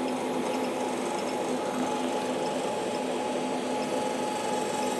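Steady electrical hum with a faint whir from an amplifier test bench, where two car amplifiers driven by a test signal are pushing current into resistive load banks.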